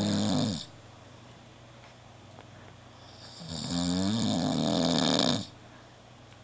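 A man snoring: one loud snore trails off just after the start, then after a pause of about three seconds comes another long snore lasting about two seconds.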